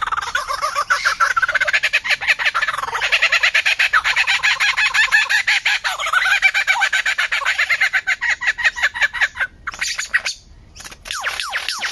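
A bird calling in a long, fast run of short notes, about ten a second, that breaks off briefly near the end and resumes as quick falling notes.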